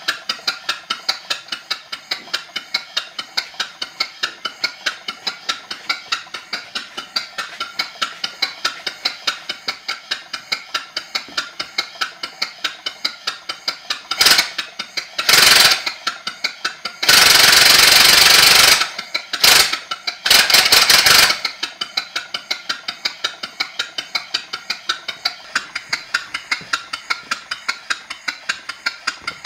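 1920s Ingersoll-Rand Model B12 "Safety Saw" pneumatic circular saw's triple-piston "Little David" air motor idling on compressed air, chuffing in an even beat of about four puffs a second. The restorer puts the idle down to low air flow leaving a valve unsealed, or to a leak within the saw. About halfway through, several short, much louder bursts of rushing air noise break in, the longest lasting about two seconds.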